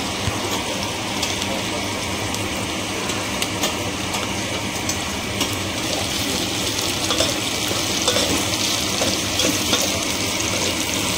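Onions and masala frying in hot oil in a cooking pot, sizzling steadily with fine crackles, as tomatoes go in.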